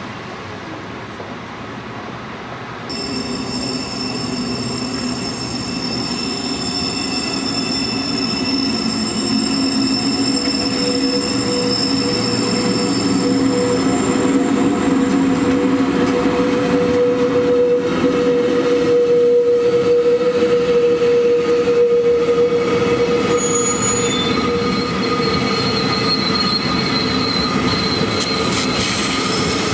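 Rhaetian Railway train, a Ge 4/4 II electric locomotive hauling red coaches, rolling slowly round a tight curve on street track, its wheels squealing in several steady high tones. The squeal and running noise start about three seconds in and grow louder as the train comes past.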